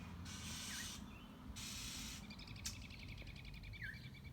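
Small songbirds calling while mobbing a hawk: a few short chirps, then a fast trilled chatter for about two seconds, between short bursts of rushing noise.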